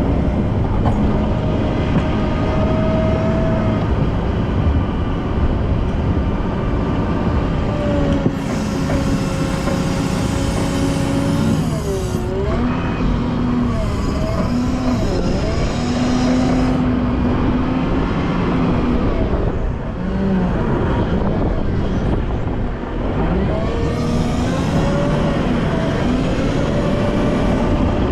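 Volvo L90F wheel loader's diesel engine running steadily while working snow, its pitch rising and falling. There are three stretches of high hiss on top.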